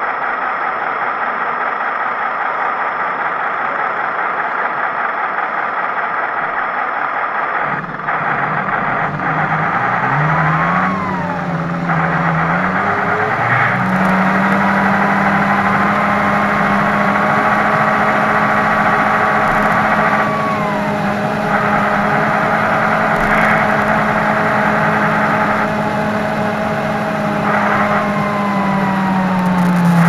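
Sound simulator in an RC model Tatra 130 truck playing a simulated air-cooled diesel V8 with howling cooling fans, heard from the model's own speaker. It idles at first, then revs up after about eight seconds and runs under way with a steady drone. The whine above the drone drops and rises again as the throttle changes.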